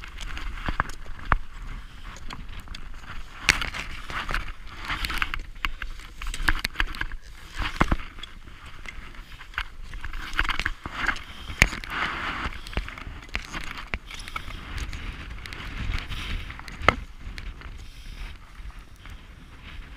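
Crampon points and an ice axe scraping, clicking and crunching on rock and snow as a climber scrambles up a winter ridge, with wind rumbling on the microphone.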